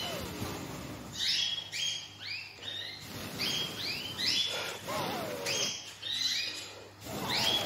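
Small cage finch calling repeatedly: short chirps that fall in pitch, about two or three a second. Lower, wavering squeaky calls come about five seconds in and again near the end.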